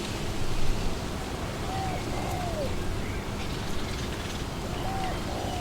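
Steady wind blowing through trees, with a bird's low two-note hooting call repeated about every three seconds, the second note falling in pitch. Faint higher bird chirps in the background.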